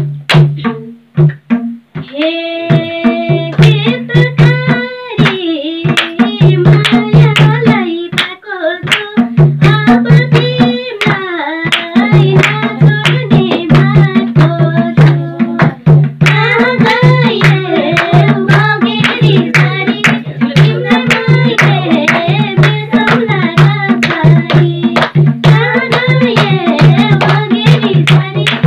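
Madal, the Nepali two-headed barrel drum, played by hand in a steady folk rhythm. About two seconds in, women's voices join, singing a Nepali dohori folk song over it.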